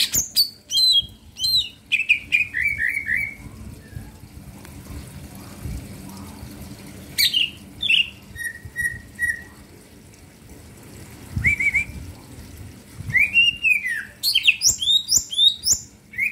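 A caged male green leafbird (cicak ijo) singing in bursts of loud, quick whistled and chirping notes, many of them sliding downward, with short pauses between phrases. The song is busiest and fastest near the end.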